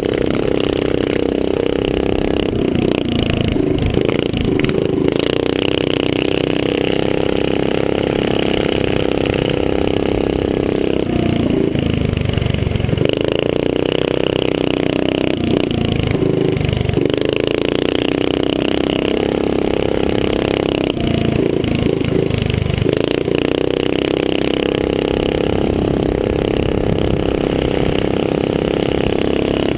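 Small dirt bike engine running at high revs, heard from the rider's helmet camera with steady wind rush over the microphone. The engine note holds steady and changes briefly a few times.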